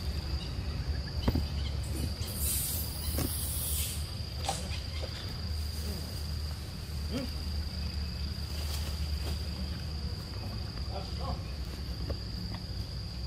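Insects singing in a steady, high-pitched drone on a single unchanging note, over a low steady rumble. Small scattered clicks and a brief hiss come about three seconds in.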